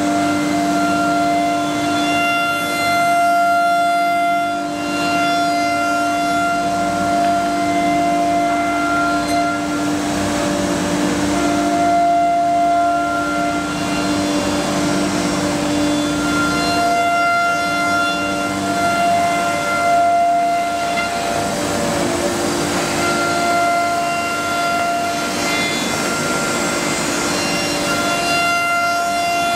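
CNC router spindle carving MDF cabinet door panels: a steady whine of several tones over the hiss of the cutter in the board. The tones shift a little in pitch and come and go as the cutter moves.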